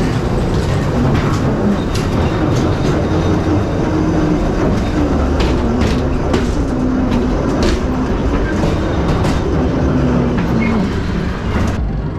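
Ghost train ride car rumbling and clattering along its track, with scattered sharp knocks over a loud, continuous rumble. The clatter thins out just before the end.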